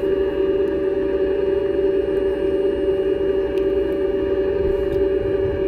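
Heng Long M1A2 Abrams RC tank's sound unit playing its engine idle sound, a steady hum held at one pitch, with a few faint clicks over it.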